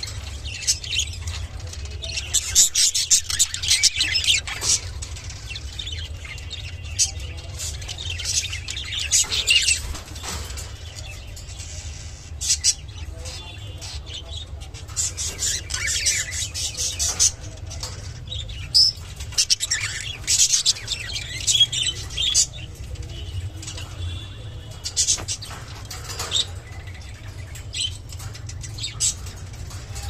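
Lutino budgerigars chattering and warbling in bursts of quick, high chirps, the budgie sounds given as a mating call. A steady low hum runs underneath.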